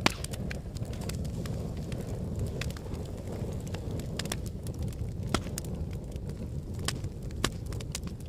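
Wood fire crackling in a fireplace: a steady low rumble of flames with scattered sharp pops and snaps, a loud pop right at the start and a few more strong ones later on.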